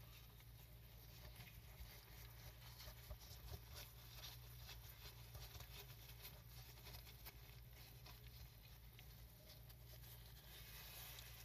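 Faint wet patter and small drips as a soaked miniature rug is rolled up by hand in a shallow tray of soapy water, with irregular light clicks throughout.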